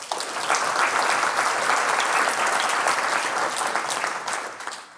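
Audience applauding, many hands clapping together; it builds within the first second and fades out near the end.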